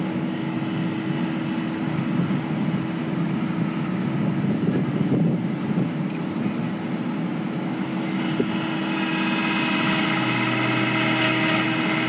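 Rooftop air conditioner's outdoor fan motor running with a steady mechanical hum and whine, growing louder and harsher from about eight seconds in. This is the noise of a failing fan motor that needs replacing.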